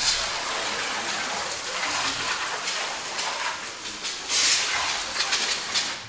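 Aerosol can of brake cleaner spraying onto a car's rear bumper in a long, continuous hiss, louder for a moment about four and a half seconds in.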